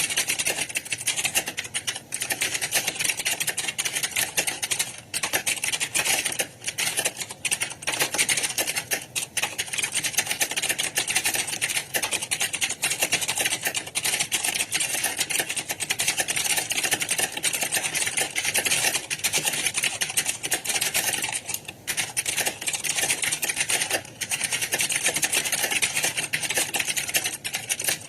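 Computer keyboard typing: rapid, continuous key clatter, broken by a few brief pauses.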